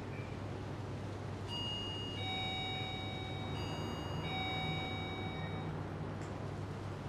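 Electronic doorbell chime: a two-note ding-dong that sounds twice, starting about a second and a half in, over a low steady hum.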